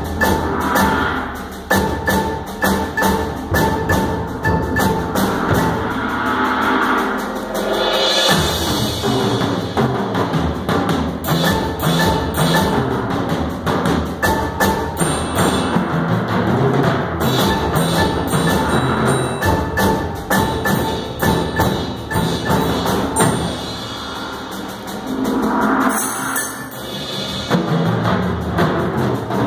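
Live percussion ensemble playing: drums and mallet keyboards such as marimba and vibraphone struck in dense, rapid rhythms, with swells of bright wash about eight seconds in and again near the end.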